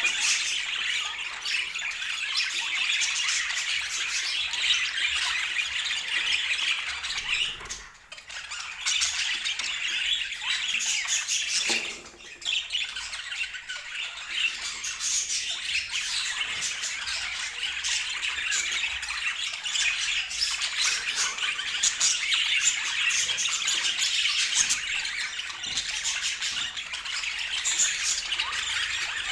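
A group of budgerigars chattering and chirping continuously, many birds at once, dropping away briefly twice, about eight and twelve seconds in.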